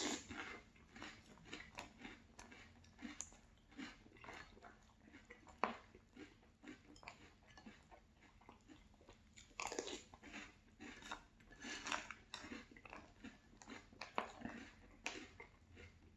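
Close-up chewing of crunchy Boo Berry cereal with milk: a run of crisp, irregular crunches, denser in stretches toward the second half.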